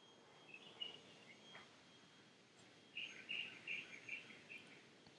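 Faint chirping over near silence: a short call about half a second in, then a quick run of about six chirps around the middle.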